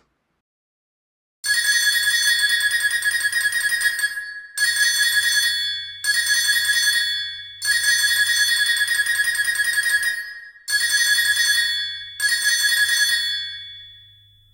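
Orchestral recreation of the US Wireless Emergency Alert phone tone: sustained pitched notes in a long-short-short rhythm, heard twice, with the last note fading away near the end.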